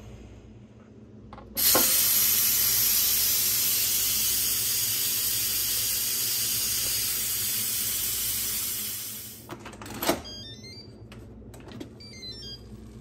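Nuwave Duet pressure cooker venting through its pressure-release valve: a loud hiss of escaping steam starts suddenly and slowly fades out after about seven seconds as the pot depressurises once cooking is done. A sharp click follows, then a few short high beeps.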